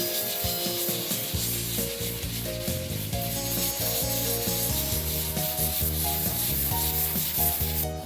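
Steady rasping of sanding on car bodywork, over background music whose bass line comes in about a second and a half in; the sanding stops near the end.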